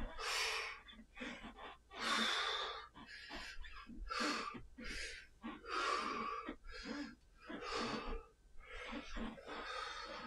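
A man breathing hard with the effort of swinging a clubbell: quick, noisy breaths in and out, about one to two a second.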